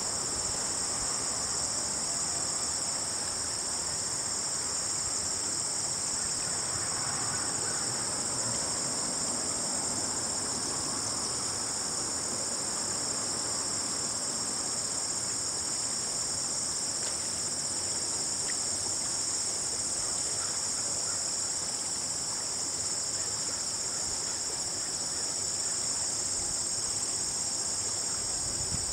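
Steady, high-pitched chorus of late-summer insects over the faint rush of a gently flowing river.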